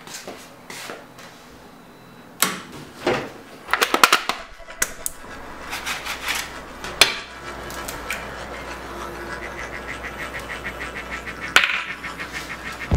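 A series of sharp clicks and knocks from kitchen handling: a stove's control knobs, eggs handled in a plastic egg carton, and an eggshell breaking. There is a cluster of knocks in the first third, a single knock about halfway through and a sharp crack near the end.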